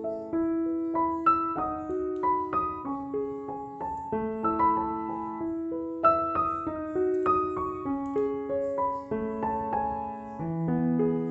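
Background piano music: a melody of struck notes, a few a second, over lower held notes.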